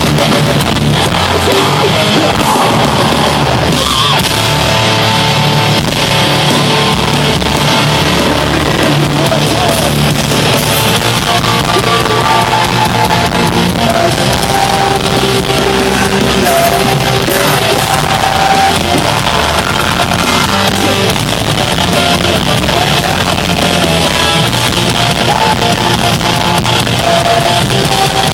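Live heavy metal band playing loud, with distorted guitars, drums and sung or yelled vocals, recorded distorted on a fan's camera microphone.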